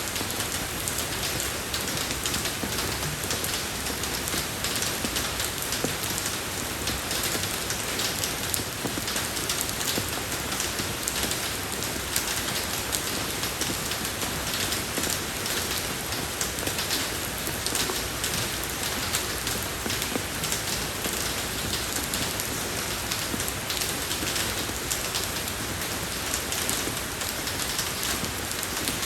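Steady rain falling on a road surface, a dense even hiss with many small drop ticks.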